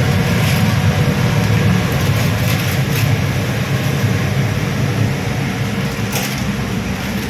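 Steady low mechanical drone of machinery and ventilation, with a couple of faint clatters about three and six seconds in.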